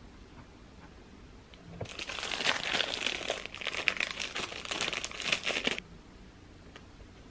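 Plastic packaging bag crinkling for about four seconds as a croissant is pulled out of it.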